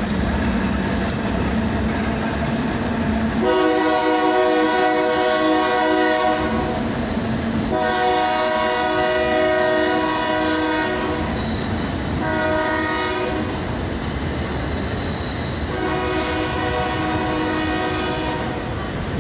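Diesel freight locomotive's air horn sounding a chord in four blasts (two long, one short, one long) over the steady rumble of the passing freight train.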